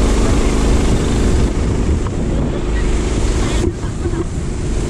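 Motorboat engine running steadily under way, with water rushing along the hull and wind buffeting the microphone. The sound briefly drops out about three and a half seconds in.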